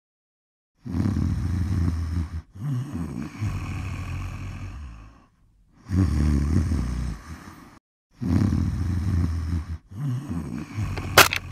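A person breathing heavily in bed, in several long, drawn-out breaths with short silent gaps between them. Just before the end there is one sharp click from the cassette deck.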